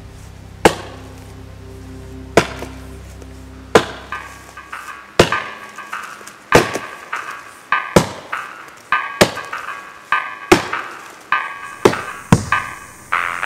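Axe chopping into the trunk of a standing dead tree: a run of sharp, single blows, about one every second and a half. Background music plays underneath.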